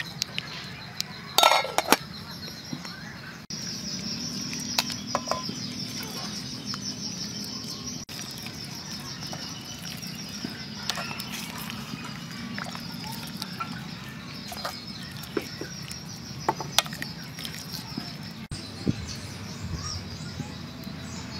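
A spoon clinking and scraping against a cooking pot, loudest about one and a half seconds in, with scattered lighter clicks over a steady high-pitched hiss.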